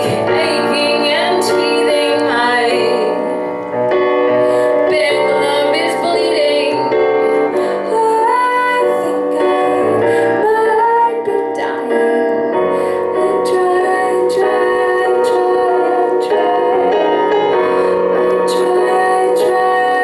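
Woman singing a slow pop song live into a microphone over instrumental accompaniment.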